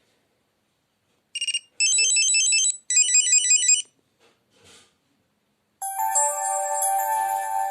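Alcatel OT-808 mobile phone playing its built-in ringtones through its small loudspeaker. After a moment of silence there is a short high tone, then two one-second runs of fast, high beeping melody. About six seconds in a new tone starts with several held notes sounding together.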